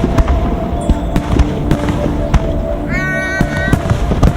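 Fireworks bursting in many quick, irregular bangs over a continuous low rumble. A brief high whistle rises and levels off about three seconds in.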